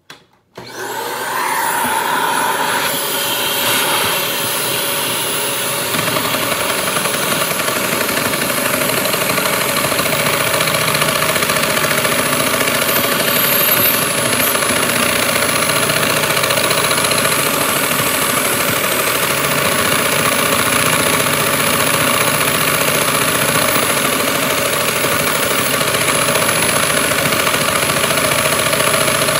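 A vacuum cleaner switches on about half a second in, spins up with a rising whine, then runs steadily and loudly. Its suction drives a Lego boxer vacuum engine with a butterfly valve, whose fast chatter mixes with the motor noise.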